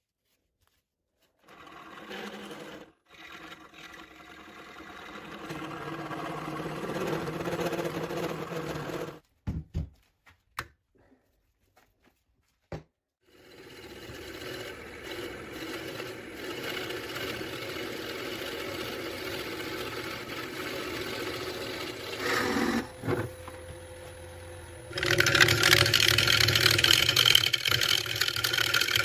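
Wood lathe running with a segmented bowl blank spinning on it, and a drill bit in the tailstock chuck boring into the blank's centre for part of the time. The sound stops and starts several times, with a few sharp clicks in a gap near the middle, and is loudest near the end.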